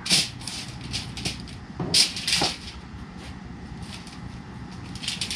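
Handling noises from food preparation on aluminium foil: a sharp crackle at the start and two more about two seconds in, with lighter crinkling and tapping in between, as pieces of butter are placed on the trout.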